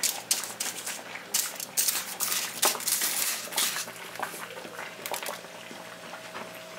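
Coarse rock salt crunching and scraping under fingers as it is pressed down into a crust over a whole fish on aluminium foil: a quick run of short gritty scrapes and crackles that thins out after about three and a half seconds, leaving a faint low hum.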